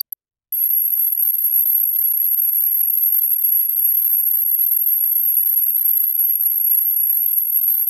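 A steady, very high-pitched electronic tone that starts about half a second in and holds at an even level.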